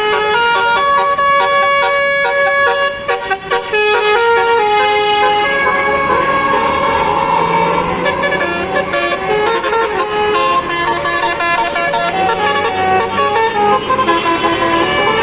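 A bus's Basuri telolet horn playing a tune: a quick run of air-horn notes, several pitches sounding together, stepping up and down from note to note.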